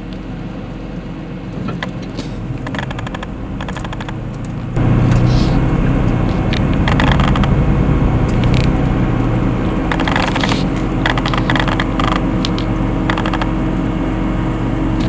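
Safari jeep driving on a forest road: engine running steadily with the body rattling and clicking over the bumps, getting louder about five seconds in.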